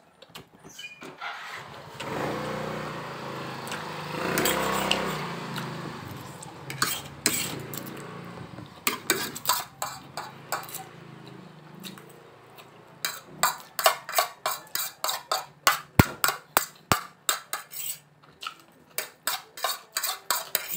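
Metal forks clinking and scraping on a ceramic plate while noodles are eaten, turning into a quick run of clicks in the second half. In the first half a low drone swells and fades over several seconds.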